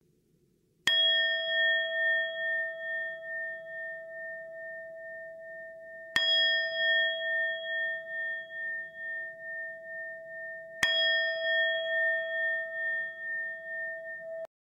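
A bell struck three times, about five seconds apart, each strike ringing on with a clear, slightly wavering tone until the next. The last ring is cut off abruptly near the end.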